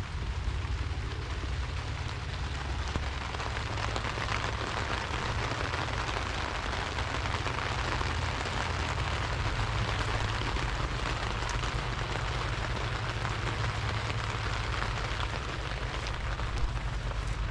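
Steady rain falling, with a low steady rumble underneath.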